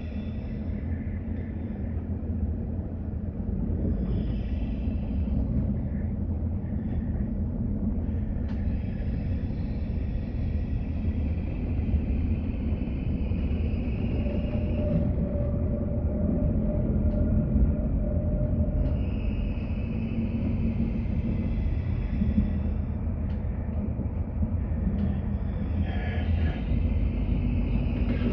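Passenger train running along the track, heard from inside the carriage: a steady low rumble that grows slightly louder, with high metallic squeals coming and going several times.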